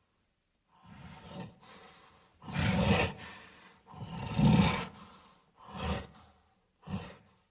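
Gorilla roar sound effects: a series of about six growling roars of differing length with short gaps between them, the loudest about four and a half seconds in and a brief one near the end.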